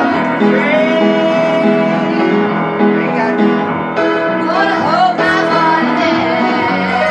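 Women singing a gospel song, accompanied by an upright piano playing held chords.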